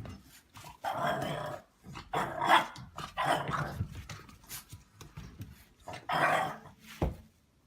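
A dog growling and barking in four short bursts, followed by a sharp knock near the end.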